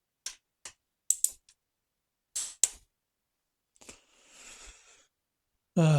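A few sharp metallic clicks, some in close pairs, from a torque wrench and socket being worked on motorcycle cylinder head bolts, then a soft rustle about four seconds in.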